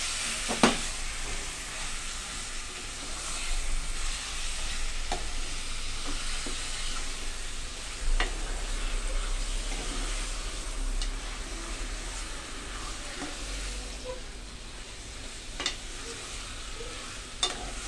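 Raw chicken pieces sizzling as they fry in masala and oil in an aluminium pressure cooker, being stirred with a metal spoon. The spoon clinks sharply against the pot a few times.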